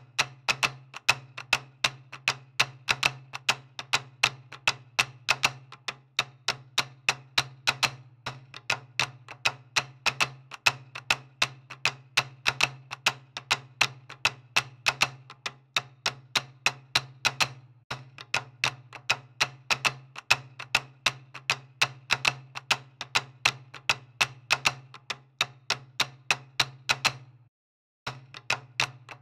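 Rapid, somewhat uneven clicking, several clicks a second, over a steady low hum. It breaks off for a moment about 27 seconds in, then resumes.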